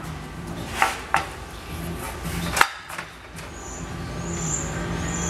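Aluminium sheet knocking and rattling as it is handled and fed into a slip roll, then the rolls turning with a short high squeak repeating about every 0.8 s as the panel is rolled into a curve.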